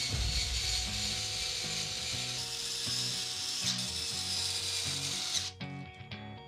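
A power tool working wood, running as one continuous noisy stretch for about five and a half seconds and then stopping abruptly, over background music.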